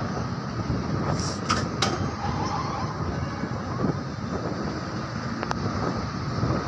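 Steady construction-site machinery rumble, with a few sharp metallic clinks about a second in, again just before two seconds, and once more about five and a half seconds in.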